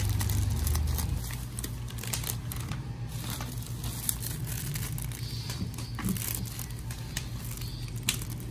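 Plastic packaging being handled: a plastic mailer bag and a clear plastic bag crinkling and rustling, with many short, sharp crackles.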